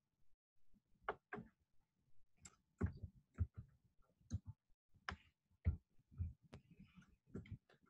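Light, irregular clicks and taps at a computer, about two a second, starting about a second in.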